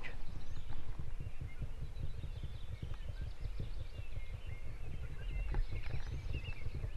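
Wind buffeting the microphone in an uneven low rumble, with faint songbirds chirping and trilling.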